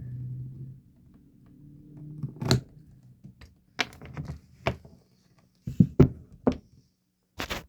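A series of sharp, separate clicks and taps from snips trimming a copper rivet nail to length in a leather sheath.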